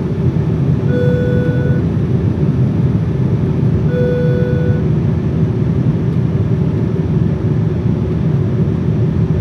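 Boeing 787 cabin chime sounding twice, each a single held tone just under a second long, about three seconds apart, over the steady noise of the airliner cabin.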